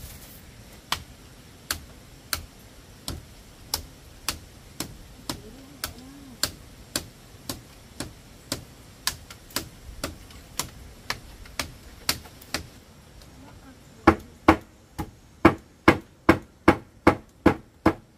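Hammer blows on bamboo: steady light knocks about two a second, then after a short pause a run of louder, slightly quicker strikes near the end.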